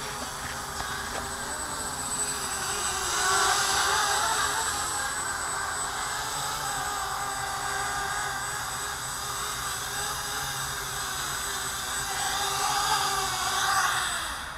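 Brushless motors and 7035 propellers of an F330 quadcopter whirring in flight, a steady layered whine whose pitch drifts up and down with throttle, swelling louder about three seconds in and again near the end.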